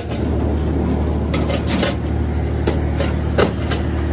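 Ferry engine idling with a steady low drone, over a series of sharp clacks and knocks as rolling suitcases are wheeled across the deck.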